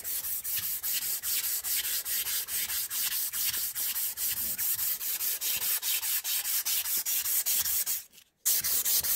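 Linen micarta knife handle being hand-sanded with a strip of abrasive paper pulled back and forth shoe-shine style: a quick, even rasping hiss of about four to five strokes a second, with a brief gap about eight seconds in.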